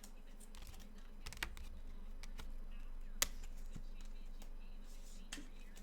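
Trading-card packaging and cards being handled on a table: scattered light clicks and taps, with one sharper click about three seconds in.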